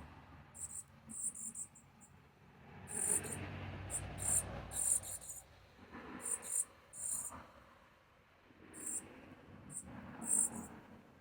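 Short, very high-pitched chirps in irregular clusters, over a faint low background rumble.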